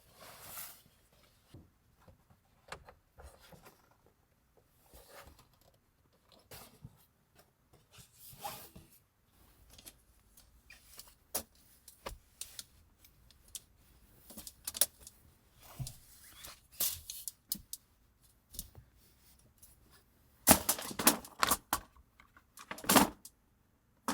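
Small objects handled at close range: scattered rustles, taps and clicks, then a louder run of jangling about twenty seconds in.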